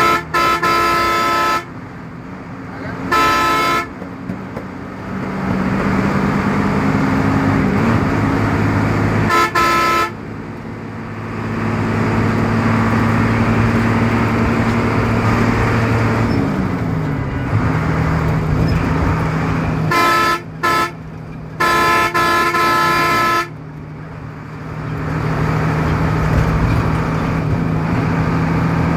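A vehicle horn honks about six times. There is one blast at the start, one a few seconds in and one around ten seconds; then a cluster of three comes around twenty seconds, the last held for about two seconds. Under the blasts runs the steady drone of an engine, heard from inside the cab. The engine note drops once partway through.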